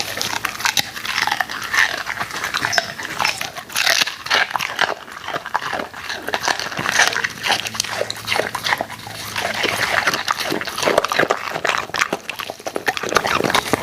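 Golden retriever eating raw food: a dense, continuous run of chewing, biting and crunching sounds.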